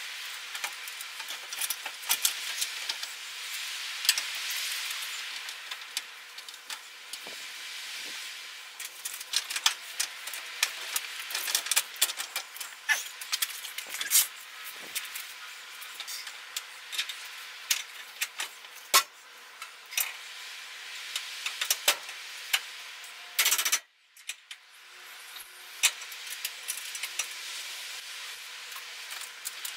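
Metal hand tools and truck rear-end parts clinking and clattering irregularly during repair work, over a steady hiss. About 23 seconds in there is a brief loud rush of noise, then a moment of near silence.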